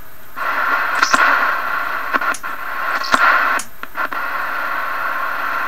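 Static hiss from the speaker of a Johnson Messenger vacuum-tube CB radio, starting about half a second in, broken by several sharp clicks and pops. The receiver is reacting to a nearby CB walkie-talkie's transmission.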